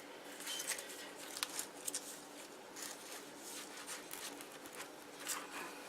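Soft, scattered rustling and scratching of hands handling cotton wool and sewing thread, over a faint steady hum.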